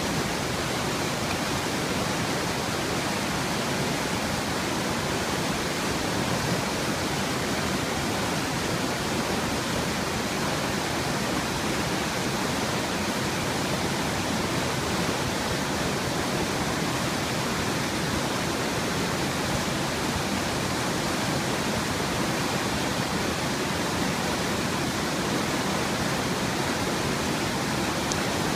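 Fast mountain creek tumbling over boulders in whitewater rapids: a steady, unbroken rush of water at an even level throughout.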